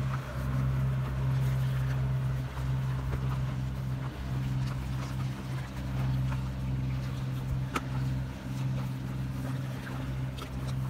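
Steady low drone of a boat engine running, with a few faint clicks.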